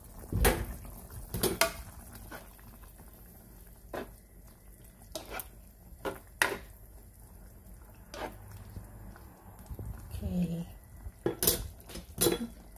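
A cooking utensil clinking and knocking against a nonstick frying pan of simmering pork adobo as the meat is prodded and turned to check whether it is tender. About ten sharp clinks come at irregular intervals, the loudest about half a second in and near the end.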